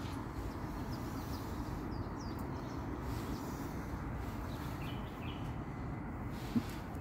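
Outdoor street ambience: a steady low rumble of distant traffic, with a few faint bird chirps and a single brief click near the end.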